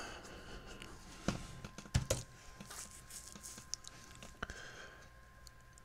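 A few faint, scattered clicks of computer keyboard keys being pressed, over a faint steady high-pitched tone.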